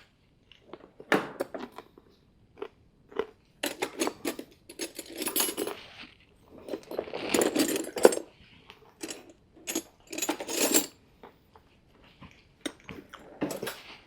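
Metal hand tools and parts clinking and clattering as they are picked up, set down and worked on the ATV's axle: an uneven run of sharp knocks with a couple of longer clattering stretches.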